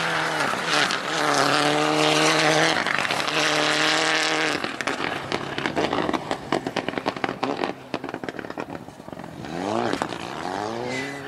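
Rally car engine at full throttle on a gravel stage, held at high revs with a brief break in pitch for a gear change. Midway the steady note gives way to a run of sharp pops and crackles, and near the end the revs rise and fall quickly.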